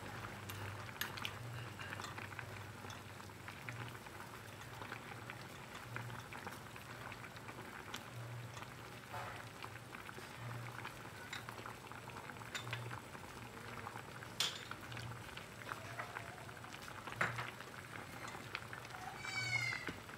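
Water with pumpkin chunks and pandan leaves bubbling at a boil in a stainless steel pot, with sharp clicks of chopsticks knocking against the pot as the pieces are stirred.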